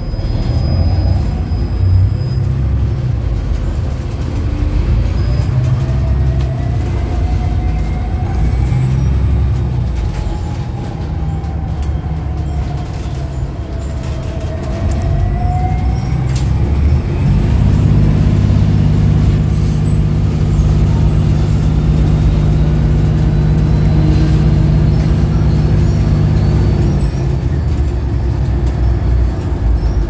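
Interior sound of a New Flyer XDE60 articulated diesel-electric hybrid bus under way, with a BAE hybrid drive. A whine from the electric drive glides up and then back down in pitch over about ten seconds. About halfway through, a louder, steady low drone sets in under the road rumble and holds for about ten seconds.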